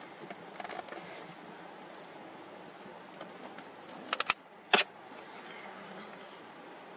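Steady outdoor background hiss, broken a little past four seconds in by a quick cluster of sharp clicks and one louder click about half a second later.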